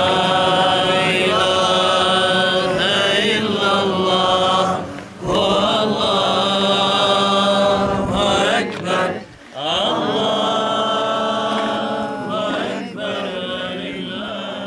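Islamic prayer chanted by imams at graves, sung in long, held melodic lines that break off briefly for breath about five and nine and a half seconds in.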